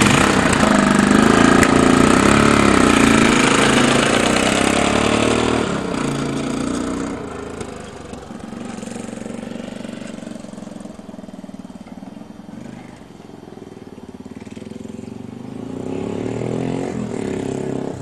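1978 Honda XL250's single-cylinder four-stroke engine, cold, catching suddenly and running loud, then pulling away and fading into the distance before growing louder again as the bike comes back.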